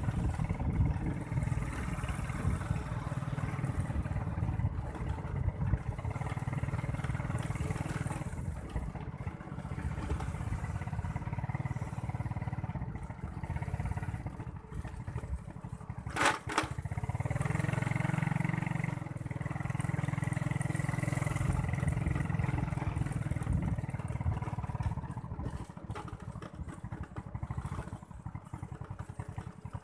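Small motorbike engine running steadily as it rides along, with a single sharp click about 16 seconds in.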